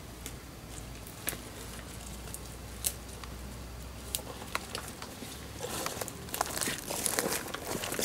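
Leaves and undergrowth rustling as plants are picked by hand, with a few sharp snaps. The rustling grows louder and denser over the last couple of seconds as the foliage is pushed aside close by.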